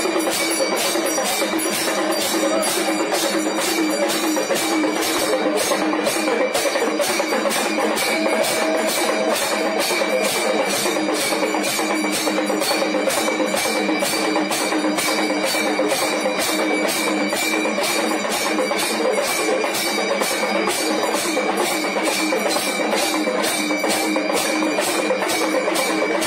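Hindu temple aarti music: bells and metal percussion struck in a steady, fast rhythm, about three strikes a second, over a dense, continuous ringing.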